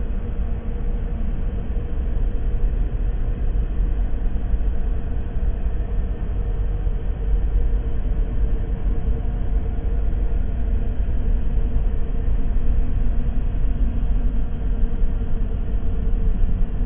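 Horror ambience sound effect: a steady, deep rumbling drone with a faint held tone above it, unchanging throughout.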